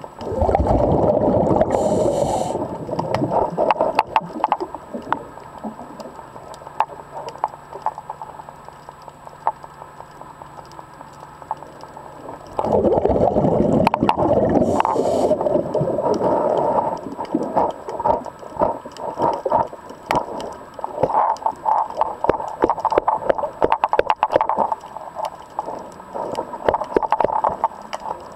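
Underwater, a diver's exhaled breath bubbling in two long gurgling bursts about twelve seconds apart, with a faint low steady hum between them. Small sharp clicks and crackles go on throughout.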